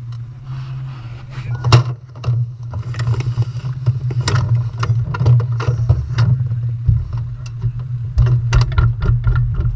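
A racing firesuit's fabric rubbing and knocking against an onboard camera, giving repeated short scrapes and thumps over a steady low engine hum.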